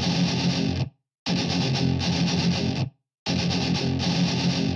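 Intro music: a distorted electric guitar playing held chords in three blocks of about a second and a half, each ending in a sudden, brief silence.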